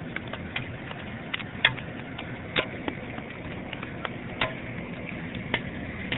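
Five or so sharp clicks and knocks spaced a second or so apart, as debris and crud are knocked out of an old seawater hose, over a steady low background noise.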